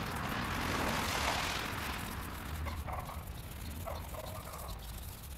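Hands rubbing and blending soft chalk over rough pavement, a scratchy rubbing that fades out about two seconds in. A low steady rumble runs underneath, and a few faint short sounds follow.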